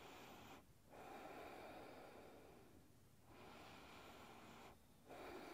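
A woman's slow, faint breathing: long, smooth breaths in and out, each lasting a second or two, with short pauses between them.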